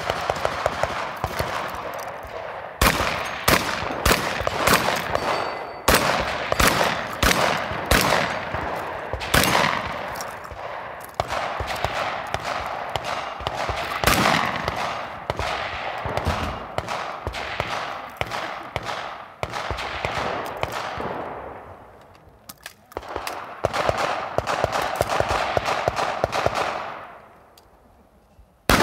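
Gunshots fired in quick strings, each shot trailed by an echo. The shooting slackens briefly about three-quarters of the way through and dies away near the end.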